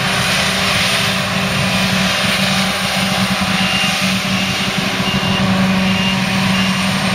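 Heavy diesel machinery running steadily and loudly under load, with a reversing alarm starting to beep about twice a second from about halfway through.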